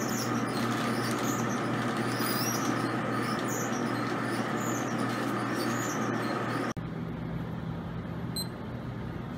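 Steady whirring of a cold room's refrigeration fans, with a plastic bag of agar plates crinkling as it is handled. About seven seconds in the sound cuts off abruptly to a quieter, lower hum.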